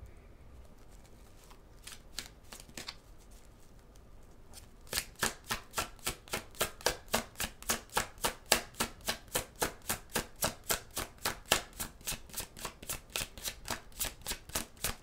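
A deck of tarot cards shuffled by hand: a few faint clicks at first, then from about five seconds in a steady patter of short card slaps, about four a second.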